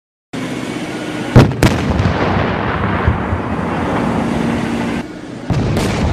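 Explosions going off: a loud continuous roar with two sharp cracks about a second and a half in and another near the end, the roar dipping briefly just before it.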